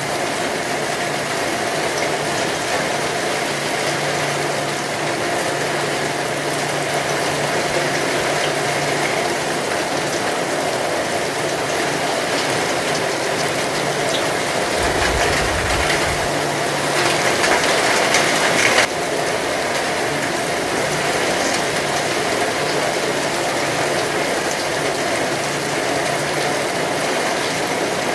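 Steady heavy rain, a dense pattering hiss, with a faint low hum underneath. About halfway through there is a brief deep rumble, and a louder rush of rain swells and then stops abruptly about two-thirds of the way in.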